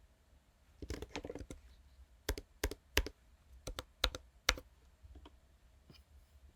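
Typing on a computer keyboard: a quick flurry of key presses about a second in, then a string of separate, sharper keystrokes, fading to a couple of faint ones near the end.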